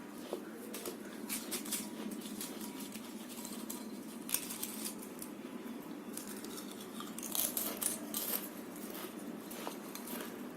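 Crisp potato chips being crunched and chewed close to the microphone, in short crackly bouts about three times, over a steady background hum.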